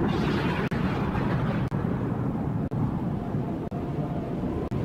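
Steady low rumbling noise, with a higher hiss over it that fades away during the first two seconds.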